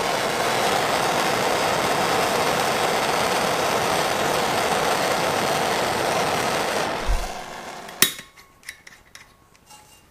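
Hand-held gas torch burning with a steady hiss as it melts the frayed ends of a synthetic starter rope. The flame stops about seven seconds in, followed by a sharp click.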